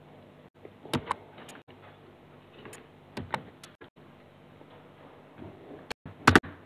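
Scattered sharp clicks of a computer mouse and keyboard while commands are picked in a CAD program, with a louder quick pair of clicks near the end, over a faint low hum.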